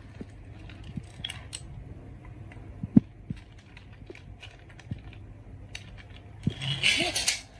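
Marbles clicking and rattling down a wooden marble run, with one sharp knock about three seconds in and a louder rattle near the end.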